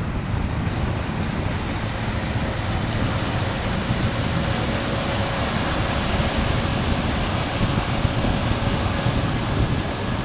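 Steady rushing of wind on the microphone mixed with the wash of water. A faint steady hum sits underneath from about three seconds in.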